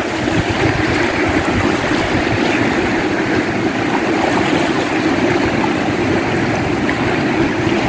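Small ocean waves breaking and washing up a sandy beach, a steady rush of surf.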